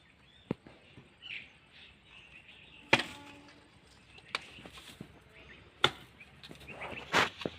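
Sharp knocks of construction work, about five at irregular intervals. The loudest, near the middle, rings briefly.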